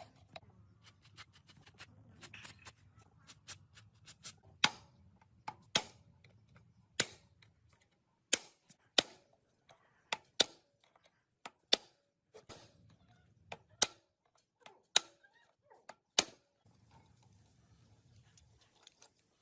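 A series of sharp knocks: a flurry of light taps, then single louder strikes about once a second that stop near the end.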